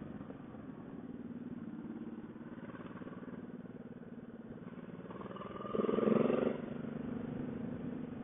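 V-twin motorcycle engine running steadily at road speed, with a brief louder burst about six seconds in.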